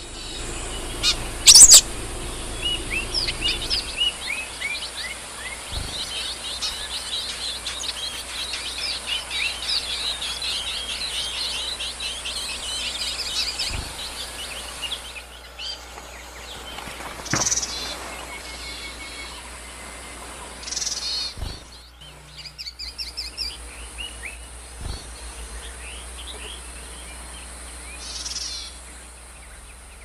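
Yuhinas calling at the nest: a dense run of quick, high chirps for the first half, then sparser chirps and a few short rough calls, over a steady high hiss. A sharp, loud click comes about two seconds in.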